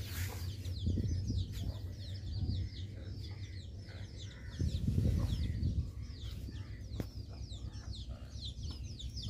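A brood of young domestic chicks peeping continuously: many short, falling peeps overlapping several times a second. A low rumble comes in about five seconds in.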